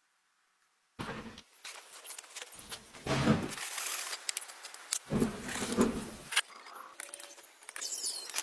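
Clattering, rattling handling noise, with two louder, deeper stretches about three and five seconds in.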